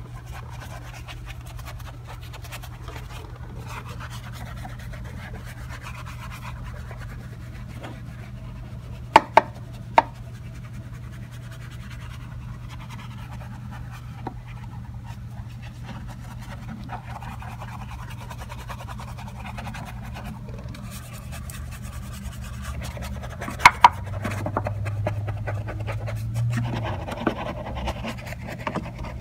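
Small detail brush scrubbing soapy foam on wheel-well and suspension parts, a soft wet rubbing and scratching, over a steady low hum. A few sharp knocks come about nine to ten seconds in and twice close together near the end.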